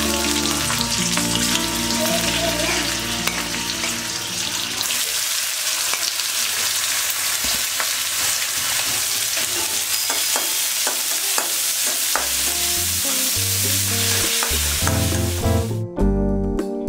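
Hot oil sizzling loudly in a steel kadai as whole spices, green chilies and then sliced onions fry, with the scrapes and taps of a spatula stirring them in the middle. Soft background music sits underneath at the start and near the end, and the sizzle cuts off suddenly just before the end.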